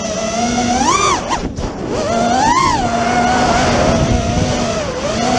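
Racing quadcopter's brushless motors and propellers whining, heard from its onboard camera. The pitch swoops up with throttle punches about a second in and again around two and a half seconds, drops away briefly in between, and settles back to a steady whine over a low rumble of wind noise.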